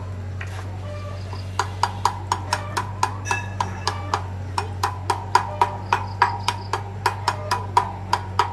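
Hammer striking a steel punch set against the bearing in a spoked motorcycle wheel hub: sharp metallic taps, about three or four a second, starting about a second and a half in, over a steady low hum.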